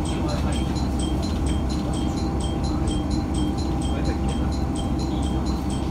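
A level-crossing warning bell ringing over and over, about two and a half strikes a second. Under it is the steady rumble of the MR-600 diesel railcar.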